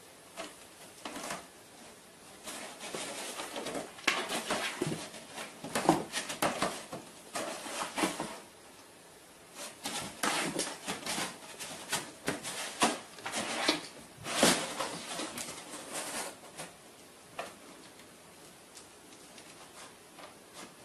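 Cardboard box with divider partitions rustling, scraping and knocking as a cat pushes its head and paws into the compartments. The noise comes in two busy spells of quick scratches and bumps, with only a few clicks before and after.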